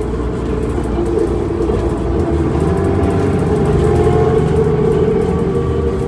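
2005 New Flyer D40LF transit bus under way, heard from inside the passenger cabin: its Cummins ISL diesel and ZF Ecomat automatic transmission give a steady drone with a few held tones. It grows a little louder about two seconds in and eases slightly near the end.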